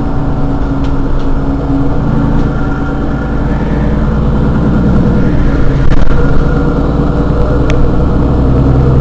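Mercedes-Benz Citaro G C2 articulated bus's Euro 5 diesel engine idling steadily, swelling a little about halfway through, with two short clicks in the second half.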